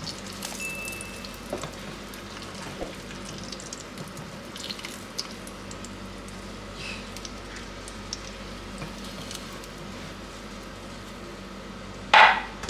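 Oil sizzling and crackling gently in a frying pan as fried eggplant slices are lifted out with spatulas, with scattered light ticks and scrapes. A brief, much louder noise comes near the end as the last slice is taken out.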